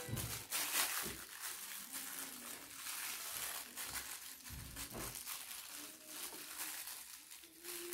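Plastic bag crinkling and rustling as it is handled, in irregular crackles.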